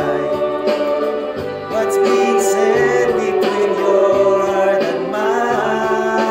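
A man singing a song over musical accompaniment, his voice close on a condenser microphone.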